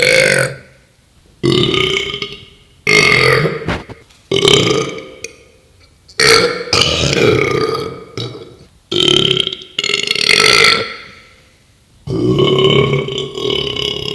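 A man burping loudly, about seven belches one after another, each roughly a second long with short pauses between.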